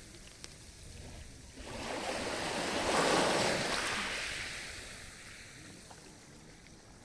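Sea surf on the shore: one wave swells to a peak about three seconds in, then slowly fades as it washes back.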